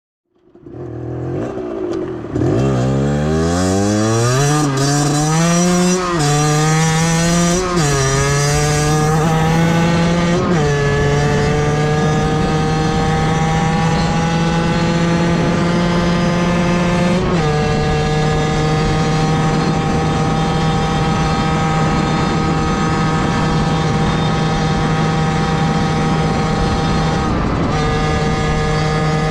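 Beta 50cc two-stroke motorcycle engine accelerating hard through the gears, its pitch climbing and dropping back at each of several quick upshifts, then holding a steady high note at cruising speed with brief dips twice later on.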